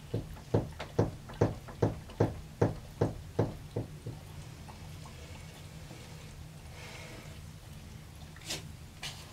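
Rapid, even knocking at about two and a half knocks a second, stopping about four seconds in, over a steady low hum. Near the end come two short, sharp sounds.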